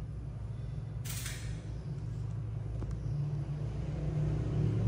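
A low, steady motor hum that grows a little louder near the end, with a brief hiss about a second in.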